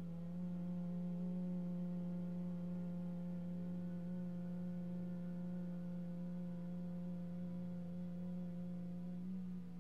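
A woman humming one long, steady low note on the exhale, the Bhramari (humming bee) breath, held for nearly ten seconds and stopping just before the end, over soft background music.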